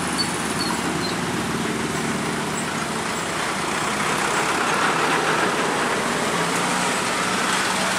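Slow road traffic climbing a steep hill: motorcycle, car and truck engines running as vehicles crawl past close by, one passing right alongside about halfway through.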